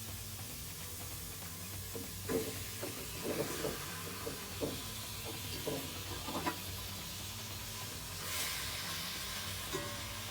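Chicken pieces sizzling in hot oil with sautéed ginger, onion and garlic in a pan, with a run of utensil knocks and scrapes against the pan as they are stirred. About eight seconds in, the sizzle briefly swells.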